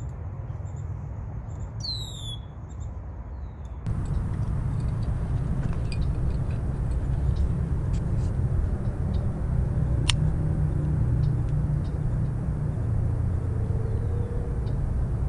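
Steady low rumble of wind and handling noise on the microphone, which grows louder about four seconds in, with a few sharp clicks. About two seconds in, a bird calls in a quick run of falling high notes.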